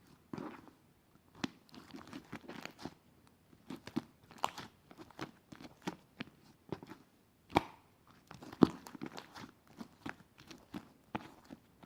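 Crunchy chewing: irregular sharp bites and crunches, several a second, with one louder crunch a little past the middle.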